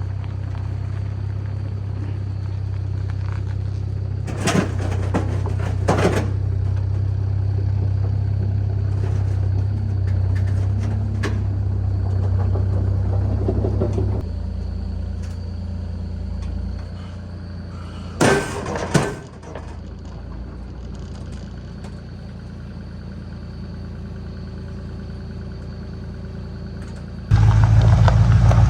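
A heavy engine running steadily, its level dropping about halfway through, with a few sharp metal clanks along the way. Near the end a much louder rumble sets in suddenly.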